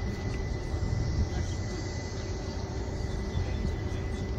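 Steady outdoor background noise: an irregular low rumble with a thin, steady high-pitched tone over it, and no distinct event.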